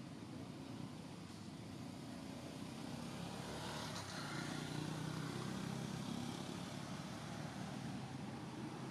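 Distant motor traffic, a steady hum, swelling as a vehicle passes about halfway through and then easing off.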